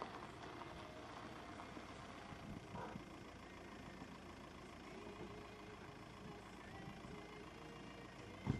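Faint steady engine hum, with a sharp low thump near the end.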